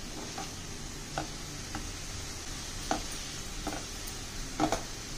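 A plastic spatula stirring chopped radish greens in a non-stick kadhai. About six light knocks and scrapes against the pan come at irregular intervals over a faint, steady sizzle.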